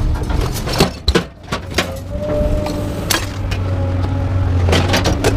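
Scattered metal knocks and clanks from scrap appliances being handled, with an engine running steadily underneath from about two seconds in.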